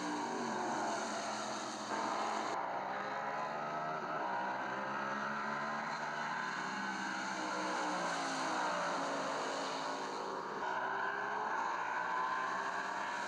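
Race-car engines at high revs, laid on as an added soundtrack, their pitch rising and falling several times as cars go by. There is an abrupt cut in the sound about two seconds in.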